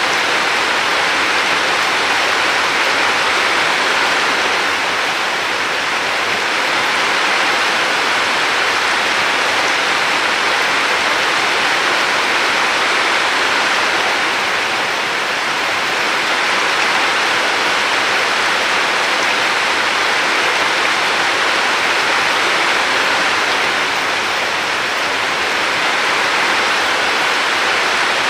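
River water flowing in a steady rush, swelling slightly every few seconds.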